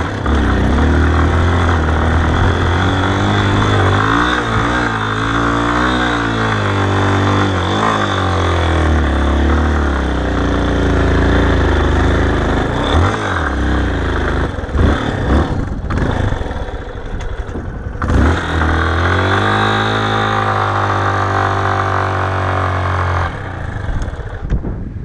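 Yamaha XTZ 250 Ténéré's single-cylinder engine revving hard as the motorcycle climbs a soft sand dune, its pitch rising and falling with the throttle. A few knocks and brief dips come midway. The engine falls back to a quieter level near the end as the bike reaches the top.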